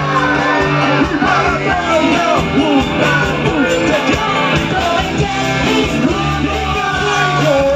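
Live band with horns and electric guitars playing an upbeat song, with singing over it.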